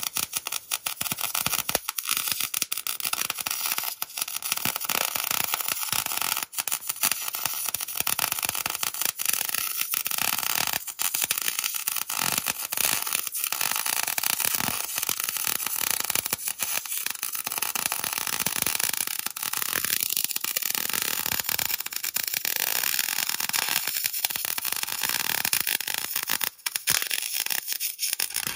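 Electric arc welder crackling steadily as a steel rock slider is welded onto a Jeep frame. There are a couple of brief breaks between welds, and the sound stops at the very end.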